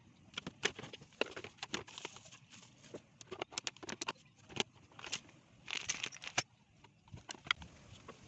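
Irregular clicks and knocks of hard objects being handled, with a quick flurry of them a little before the six-second mark.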